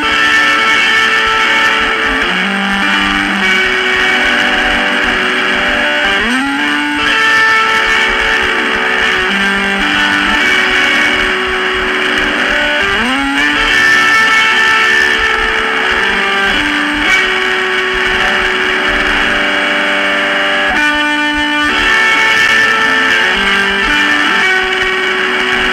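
Lo-fi, cassette-recorded electric guitar music: a repeating pattern of held notes, with a pitch sliding up about every six and a half seconds and a short break a little after twenty seconds in.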